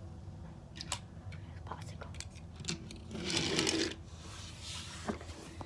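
Scattered light clicks and taps from small objects being handled, with a louder rustle lasting under a second about three seconds in, over a low steady hum.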